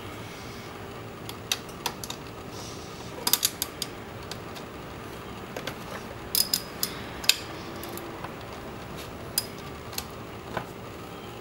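Hand ratchet with a 12 mm socket clicking in short, irregular bursts while it loosens the drain bolt on a scooter's final drive (gear oil) case, with a few metal clinks of the socket being handled.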